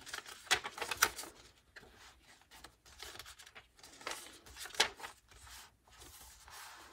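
Paper and card pages of a handmade junk journal being turned and handled: a run of short rustles, scrapes and taps, a few of them louder.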